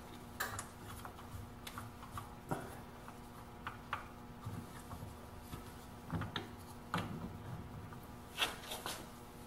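Quiet handling noises of wooden pedal parts being fitted together on a workbench: scattered light clicks, taps and rubbing, with a few slightly louder knocks around the middle and near the end. A faint steady hum runs underneath.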